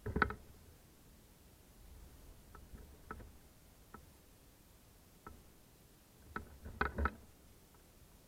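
A cat playing with a feather wand toy: scattered light knocks and taps, with a louder thump just after the start and a quick cluster of knocks about seven seconds in.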